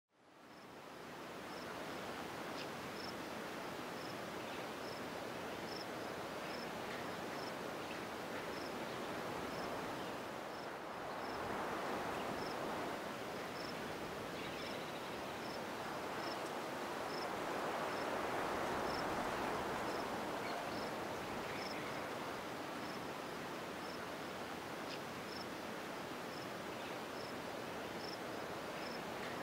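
A cricket chirping in an even rhythm, a little faster than once a second, over a steady rushing background that swells twice. The sound fades in at the start.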